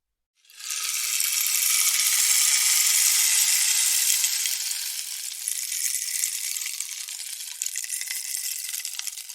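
Rainstick turned over once: a dense pattering trickle of beads or seeds falling through the tube, swelling in about half a second in, loudest a couple of seconds later, then slowly thinning until it runs out at the very end.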